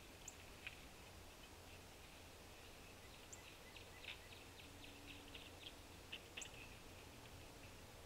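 Pileated woodpecker pecking at a suet feeder: faint, irregular taps, most of them between about three and seven seconds in. A few brief high bird chirps are heard over them.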